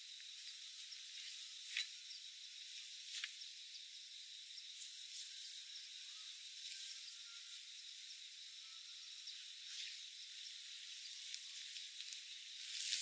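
Nylon backpack and gear bags being handled and unpacked, short rustles and scrapes over a steady high hiss with faint insect tones; the loudest rustle comes near the end as a stuff sack is pulled out.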